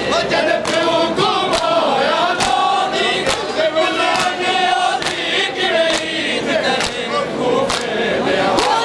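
A crowd of men chanting a noha together, with loud unison chest-slaps of matam keeping time at about one beat a second.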